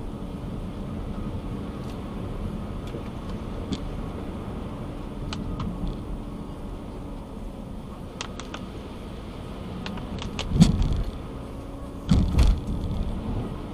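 Car driving on wet streets, heard from inside: a steady low rumble of engine and tyres with scattered sharp ticks. Two louder thumps come about ten and twelve seconds in.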